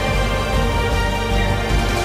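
Background music: sustained chords held steady.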